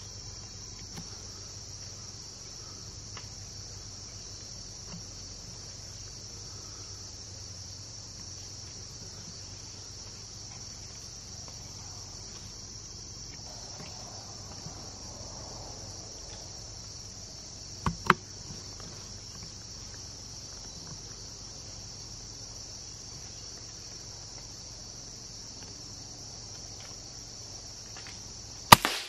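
Steady high-pitched insect chorus in summer woods. A couple of sharp clicks about two-thirds of the way through, and a much louder sharp crack at the very end.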